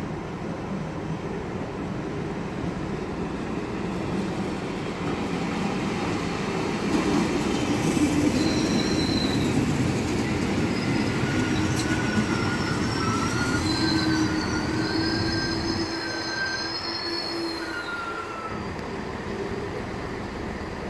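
NordWestBahn regional multiple unit passing close by. Its running rumble swells to its loudest about eight to fourteen seconds in, with high squealing tones that come and go over it before the noise falls away.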